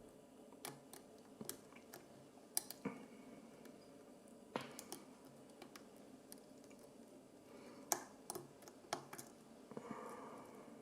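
Faint, irregular clicks of a lock pick working the pin stacks of a cheap Master Lock padlock under tension from a wrench at the bottom of the keyway, with a brief scraping rustle near the end.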